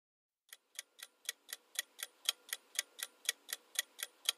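Clock-ticking sound effect of a quiz countdown timer, about four sharp ticks a second. The ticks start about half a second in and grow louder over the first second.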